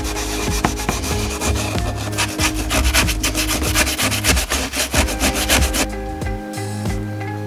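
An abrasive pad scrubbed rapidly back and forth over the painted steel head of a Cold Steel Trail Boss axe, stripping off the paint, with background music underneath. The scrubbing stops about six seconds in, leaving only the music.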